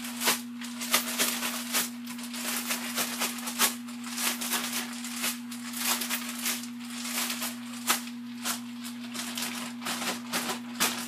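Catfish fillet being shaken by hand in a plastic bag of seasoned almond flour to coat it in breading: irregular shaking strokes, a couple or more a second, over a steady low hum.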